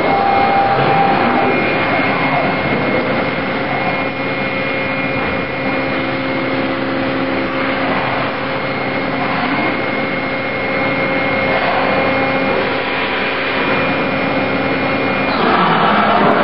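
CNC machining centre milling an aluminium speargun head under flood coolant: a steady rush of coolant spray and cutting noise with several steady whining tones from the spindle and cutter. A few rising and falling pitch sweeps come and go, about a second in, midway and near the end.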